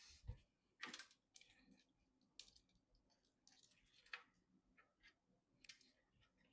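Faint, scattered clicks and rustles of PC parts and cables being handled during assembly, with a soft low thump just after the start.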